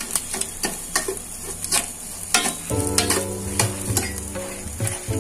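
A steel spoon scrapes and clicks against a stainless steel pan as chopped vegetables are stir-fried, with the vegetables sizzling.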